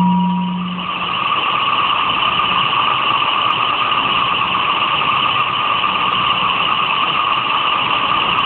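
Electronic sound from a kinetic light-and-sound installation: a steady, filtered, hiss-like noise, after a low electronic hum fades out in the first second.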